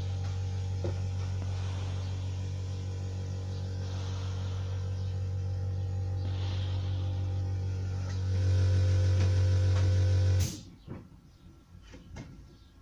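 Steady electrical hum from a running machine. It grows louder about eight seconds in and then cuts off suddenly with a click, like something being switched off. A few light knocks follow.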